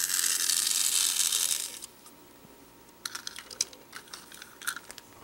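Battery-powered micro toy train engine running in the hand, its small motor and plastic gears whirring steadily, stopping about two seconds in. Then a few light plastic clicks and taps as the toy is handled and set down.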